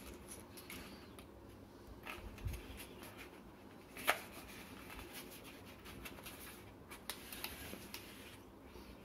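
Faint handling noise of a plastic pen-style water TDS tester being slid out of its red cardboard packaging tray: light rubbing and a few soft knocks, with one sharp click about four seconds in.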